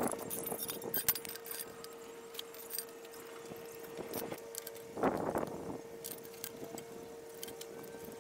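Galvanized steel square tubes being handled and laid out on a concrete floor: scattered light metallic clinks and knocks, with a longer scrape about five seconds in, over a faint steady hum.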